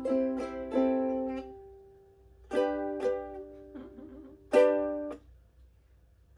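Ukulele strumming chords in an unhurried, halting riff: three quick strums left to ring out, a pause, then two strums, a soft muted scratch, and a loud strum about four and a half seconds in that rings and fades.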